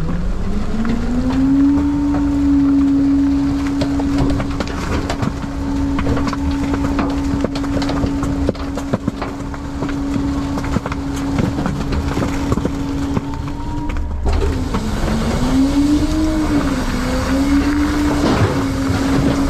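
Front-load garbage truck's engine speeding up to drive the hydraulic packer, holding a steady high pitch, then dipping and wavering near the end, as the compactor packs the load in the hopper with scattered crackling and crunching of paper, cardboard and plastic.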